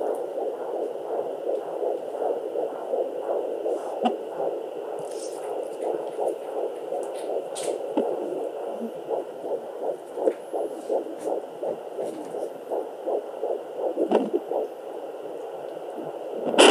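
Sonoline B fetal Doppler picking up a 12-week fetal heartbeat through the speaker: a fast, even pulse in the 160s beats per minute, with a faint steady hum and a few brief knocks from the baby moving. Right at the end comes a loud scratchy scrape as the probe is lifted off the belly.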